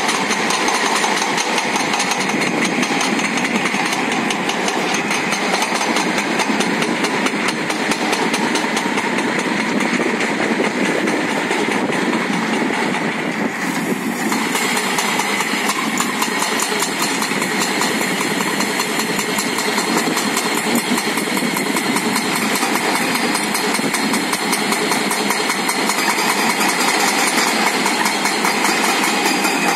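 Hydraulic rotary drum cutter on a crawler excavator grinding into a rock face, a dense, continuous rattling grind over the excavator's diesel engine running steadily under load.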